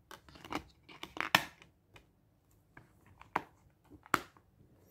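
Plastic Blu-ray case being handled and shut, giving a run of short plastic clicks and scrapes, with sharp clicks a little after one second and about four seconds in.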